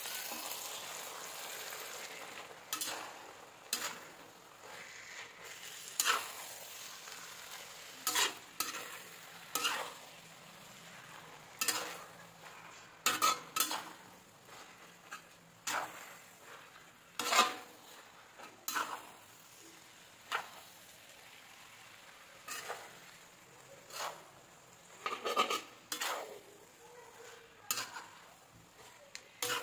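Metal spatula scraping and knocking against a wok as corn vermicelli is stir-fried and tossed, in short irregular strokes about one every second or two. A faint sizzle under the first few seconds dies away.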